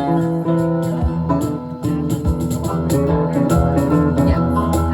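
Live band playing an instrumental passage: electric guitar and bass over a steady beat of sharp percussive hits.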